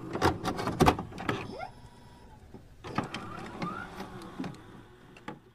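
Digital glitch sound effects for a loading-screen intro animation: a run of sharp clicks and crackles mixed with short rising electronic blips and whirs, busiest in the first second and a half and again in the middle, fading out near the end.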